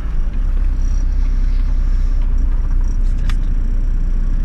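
Cabin noise inside a Toyota LandCruiser 105 Series driving a rutted dirt track: a steady low engine and tyre rumble, with a sharp click about three seconds in.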